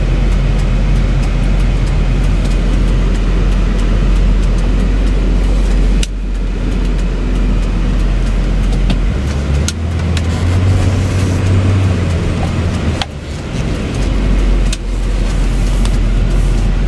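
2004 Chevy C5500 rollback truck's 6.6 liter Duramax diesel engine running under way, with road noise. The engine note changes a few times. There are a few sharp knocks, at about 6, 13 and 15 seconds in.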